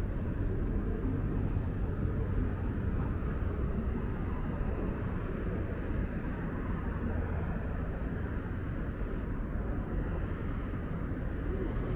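City street ambience: a steady low rumble of road traffic, with no single event standing out.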